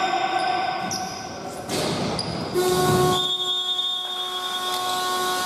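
Basketball hall horn sounding one steady, unwavering tone for about four seconds, starting about halfway in; in a game's last seconds this marks the end of play. Before it come voices and ball bounces echoing in the gym.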